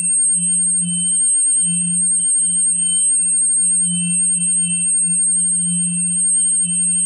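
A steady low electronic drone tone that swells and dips about once a second, with fainter higher tones and a steady high-pitched whine above it.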